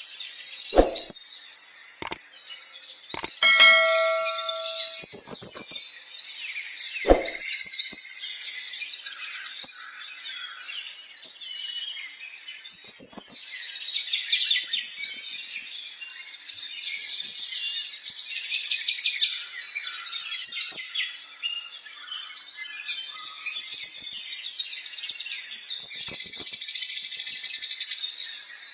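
Many small birds chirping and twittering at once in a dense, continuous chorus. A few sharp knocks sound about a second, two seconds and seven seconds in, and a brief ringing tone sounds around four seconds.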